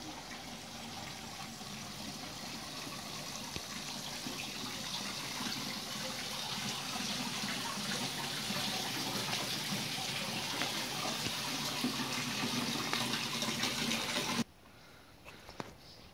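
Steady rush of running water, growing gradually louder, that cuts off abruptly about 14 seconds in. The water comes from a spring outlet at a stone-walled spring house fed by mineral springs.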